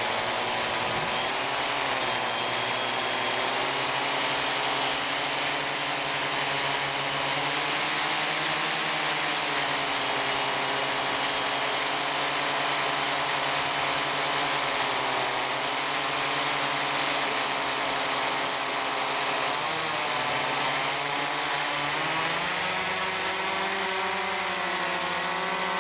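The video blimp's propeller motors running steadily, heard from on board the blimp, over a steady hiss. Their pitch dips and rises again several times as the throttle changes.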